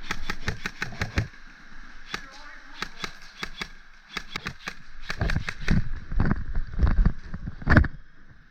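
Airsoft guns firing in quick series of sharp clicks, several shots a second, in bursts. In the second half come heavy low thumps and one louder crack near the end.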